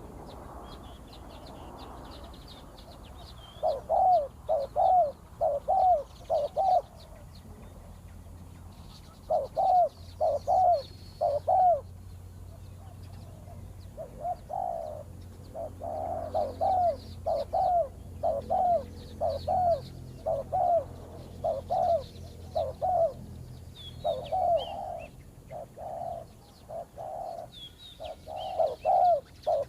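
Spotted doves cooing: runs of low, rhythmic coo notes, each run several notes long, with pauses between runs. Small birds chirp faintly in the background.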